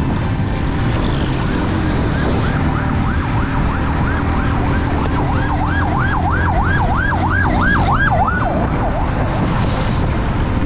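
Steady motorcycle engine and road noise while riding, with a siren warbling fast over it, about three rises and falls a second; it comes in about two seconds in, is loudest around the middle and fades out before the end.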